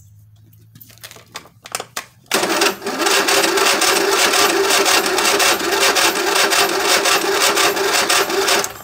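Electric starter cranking a Husqvarna YTH22V46 lawn tractor's V-twin engine with the spark plugs removed: a loud, steady whirr that starts about two seconds in and runs about six seconds before stopping. The cranking is pumping fuel through the fuel pump to purge old gasoline that may be mixed with water. A few light clicks come before it.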